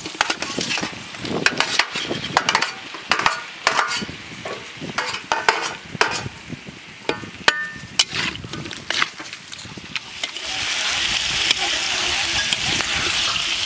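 Cut eel pieces scraped off a steel tray with a metal spatula and dropped into a wok, a run of clattering knocks and scrapes. About ten seconds in, a steady sizzle starts as the eel fries and is stirred in hot oil.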